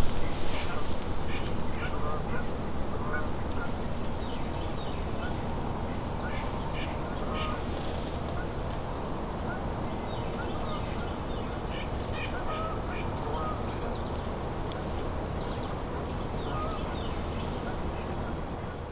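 A flock of geese honking, many short calls overlapping and repeating throughout, slowly growing fainter.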